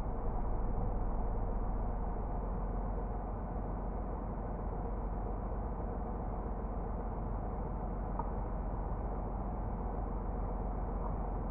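Steady low rumble inside a Honda N-BOX's cabin, picked up by its dashcam microphone, easing slightly a couple of seconds in.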